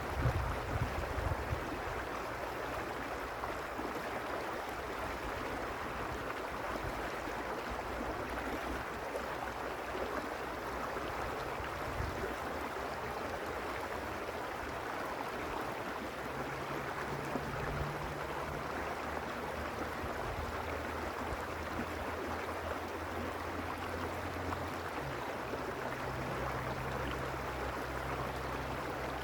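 Stream water rushing steadily. Wind buffets the microphone in the first second or so, and from about halfway through a low steady hum runs under the water.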